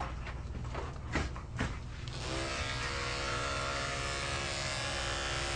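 Two short sounds, then about two seconds in a pair of electric dog grooming clippers with a #10 blade switches on and runs steadily with an even hum.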